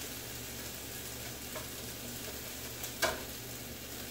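Sausages frying in a pan on a stovetop: a steady sizzle, with a few faint ticks and one sharp knock about three seconds in.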